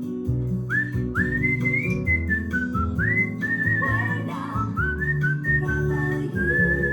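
Cockatiel whistling its song: a string of short whistled notes that each sweep up and level off, ending in a longer warbling note, over steady background music.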